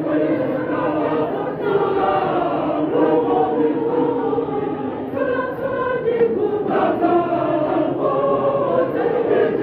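Large church choir singing together, many voices holding long notes that shift from chord to chord every second or so.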